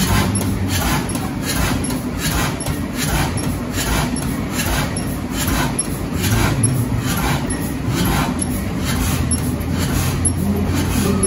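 Large vintage stationary engine running at a slow, even beat, about two strokes a second, over a steady machinery hum.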